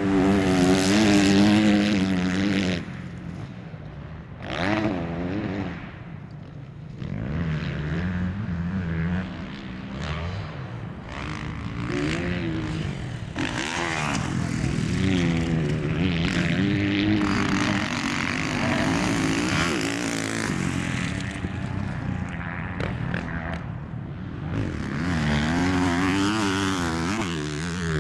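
Motocross bike engines revving up and easing off again and again, the pitch rising and falling with the throttle. They are loudest in the first few seconds and again near the end.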